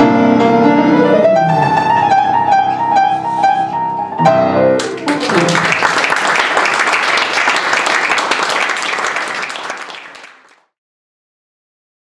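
Piano playing the closing bars of a song, ending on a held chord about five seconds in; audience applause then breaks out and fades away before cutting to silence.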